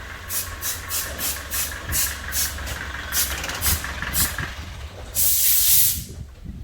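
Compressed air hissing in a quick string of short bursts, about three a second, then one longer, louder blast near the end, over a steady low rumble.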